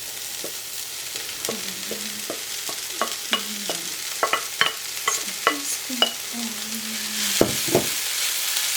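Onions, peppers and carrot frying in a little oil in a pot while being stirred: a steady sizzle with a spoon scraping and tapping against the pot in quick irregular clicks, then two louder knocks, after which the sizzle grows louder.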